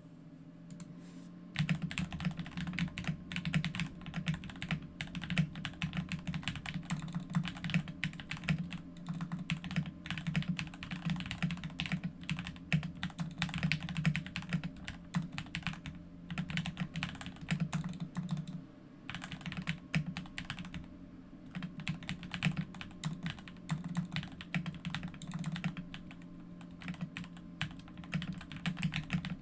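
Typing on a GK61 mechanical keyboard with lubed and filmed Gateron Milky Yellow linear switches: a fast, continuous run of keystrokes starting about a second and a half in, broken by a few short pauses.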